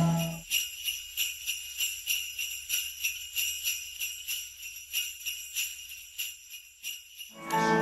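Jingle bells shaken in a steady rhythm, about three shakes a second.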